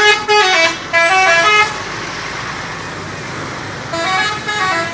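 An intercity bus's telolet musical horn plays a quick tune of stepped notes for about a second and a half. After a pause it plays a shorter run of notes near the end, with steady background noise in between.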